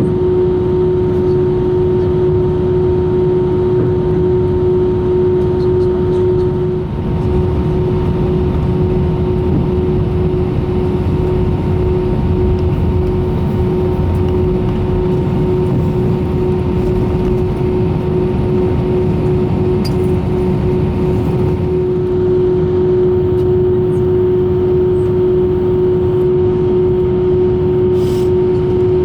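Airbus A320 cabin noise with the engines at idle: a steady low rumble under a constant whining tone, with no build-up of thrust.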